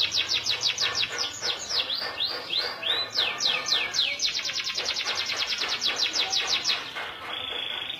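Domestic canary (Indonesian local canary) singing in full song: fast runs of repeated high, downward-sweeping notes, changing near the end to a steady high trill.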